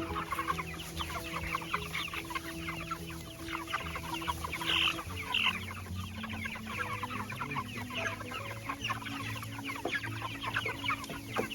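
A crowd of young poultry peeping and chirping rapidly and without pause, with two louder, higher calls about five seconds in.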